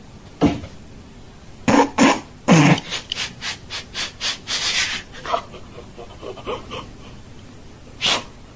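A person laughing: a few loud bursts, then a quick run of breathy "ha"s at about three a second, and one more burst near the end.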